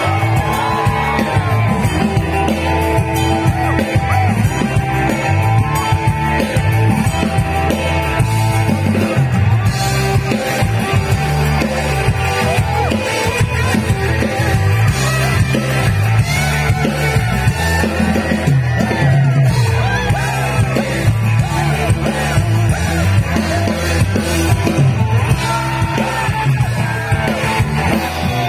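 A rock band playing live through a PA, heard from the crowd: electric and acoustic guitars, bass and drums with a steady beat.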